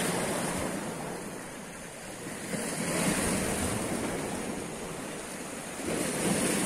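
Sea waves washing against the rocks of a stone jetty, surging and easing about every three seconds.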